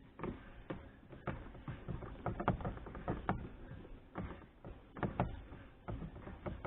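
Irregular small clicks and light knocks of plastic and metal parts being handled and fitted at the ignition switch on the steering column.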